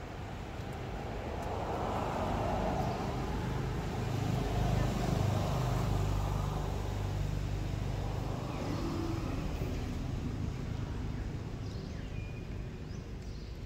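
A motor vehicle passing by, its engine hum and road noise swelling to the loudest point about five seconds in and then fading away.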